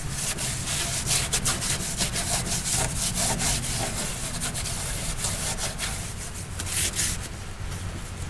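A gloved hand rubbing a black pad back and forth on a fiberglass bilge floor in quick scrubbing strokes, several a second, easing off near the end.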